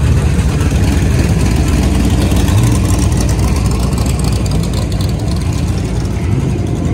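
Engine of a modified Holden VL Commodore rumbling at low revs as the car rolls slowly past.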